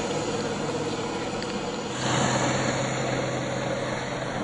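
Electric motor and geared drivetrain of a 1/10 scale RC crawler truck whining steadily as it drives, over an even hiss. The sound gets a little louder about two seconds in.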